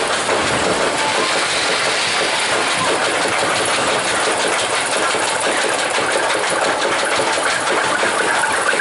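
Spinning roller coaster car being hauled up the chain lift hill: the lift chain and car wheels make a steady, fast mechanical clatter.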